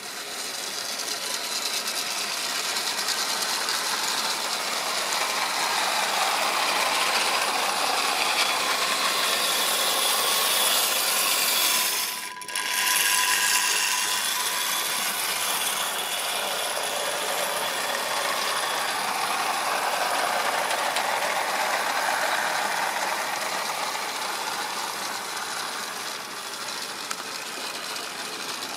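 H0-scale model train running along the track, its wheels clattering over the rails with a faint steady whine. It grows louder over the first few seconds, drops out briefly about twelve seconds in, then slowly fades.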